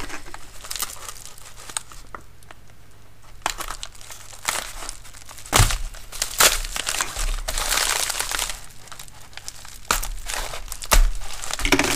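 White plastic mailer crinkling and tearing as it is cut open with a knife. The crinkling comes in irregular spells with sharp crackles and gets busier from about four seconds in.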